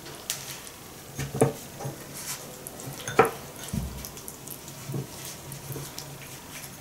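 Raw chicken drumsticks being turned by hand in a small ceramic bowl of curry spice: soft handling with a few sharp knocks against the bowl, the loudest about a second and a half and about three seconds in.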